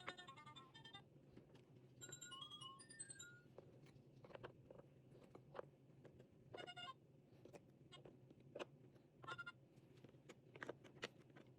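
Short electronic jingles: a quick run of beeping notes in the first second, a falling tune about two seconds in, and two brief beeps later, with faint clicks and taps in between.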